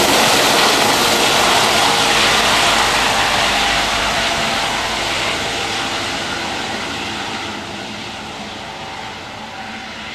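Eurocopter EC135 helicopter's rotors and twin turbines, loud at first and fading steadily as it climbs away and flies off.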